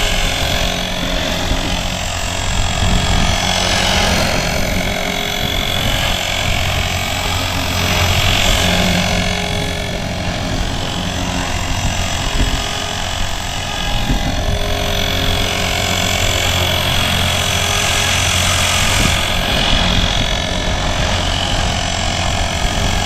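Blade 360 Fusion RC helicopter in flight, its electric motor, gears and rotors running with a loud gear noise from sand caught in the main spur gear. The pitch swells and falls every few seconds as it manoeuvres.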